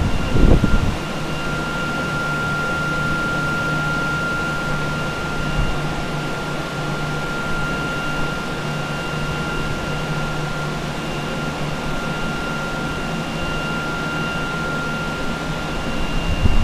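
Water-damage drying equipment running steadily: a constant whir with a steady high whine and a low hum. A low thump about half a second in.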